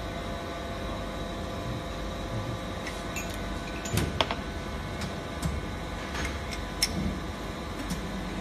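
Steady hum of a vertical injection moulding machine's electric pump motor, with several sharp metallic clicks as cable ends are set into the steel mould insert; the loudest clicks come about four seconds in.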